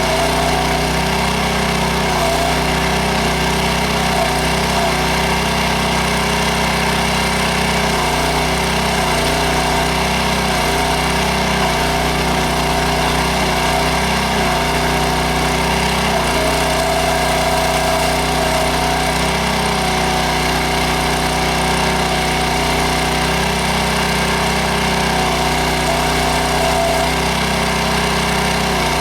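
Small gas engine of a towable backhoe running steadily while the hydraulics are worked, its note shifting in steps again and again as the load changes. A higher whine rises over it briefly a little past the middle.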